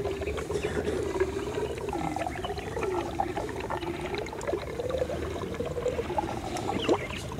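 Orphaned African elephant calf suckling milk formula from a large bottle, with gurgling and slurping and a wavering, moaning tone throughout. A short rising squeal comes near the end.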